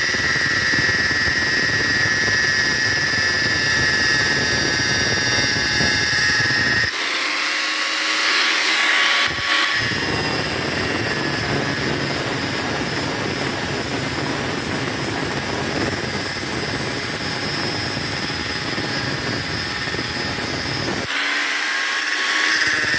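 A power drill used as a makeshift lathe runs steadily with a high whine while a metal pin spinning in it is ground down, giving a continuous grinding noise. The low rumble of the grinding drops out twice for a few seconds.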